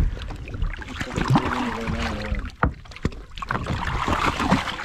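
Scattered sharp knocks and clatter of handling on a fishing boat, over a steady wash of wind and water noise.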